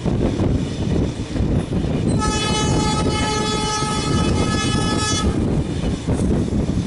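A WDM2 ALCO diesel locomotive's air horn sounds one steady blast about three seconds long, starting about two seconds in and cutting off sharply, over the continuous rumble of the train running on the rails.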